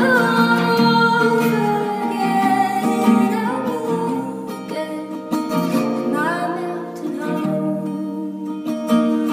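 A woman singing with acoustic guitar accompaniment. A long held note opens the passage, followed by shorter sung phrases over the steady guitar.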